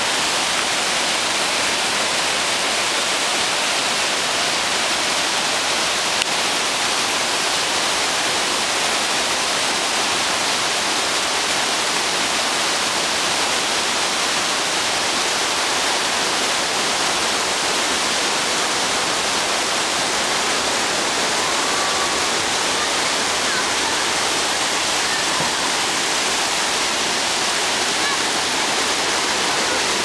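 Waterfall: many streams of water pouring off a cliff and cascading over rocks, a loud, steady rush of water that doesn't change.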